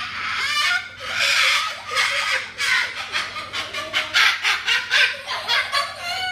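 White cockatoo screeching: a run of loud, harsh calls, a few longer ones at first, then quicker short squawks at about three a second.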